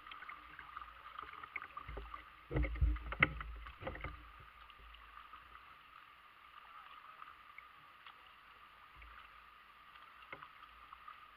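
Plastic kayak on a shallow creek, with a steady wash of moving water around the hull. About two to four seconds in come a few close knocks and splashes from the paddle against the hull and the water.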